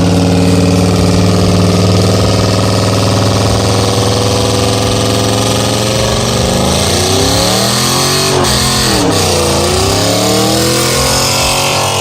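A car engine held at high revs, its pitch steady for about six seconds and then dropping and rising several times.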